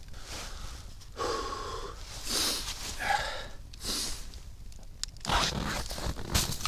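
A few short wordless breaths and mouth sounds in the cold, each lasting under a second. About five seconds in, frozen snow starts crunching under boots and being kicked up.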